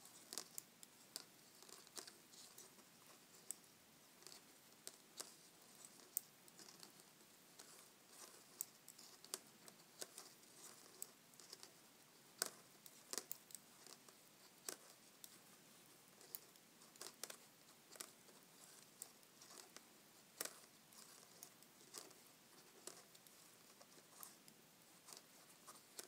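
Faint, irregular clicks and light scraping of metal Addi Lace interchangeable knitting needle tips and yarn as stitches are purled, about one or two clicks a second.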